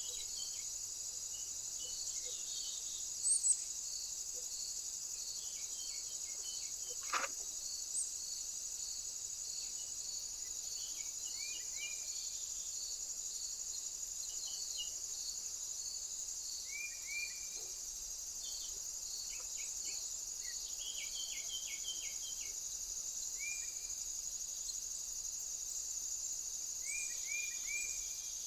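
Insects trilling steadily, with a regular pulsing chirp about once a second. Short small-bird chirps come in little groups of two to four now and then. There is one faint click about seven seconds in.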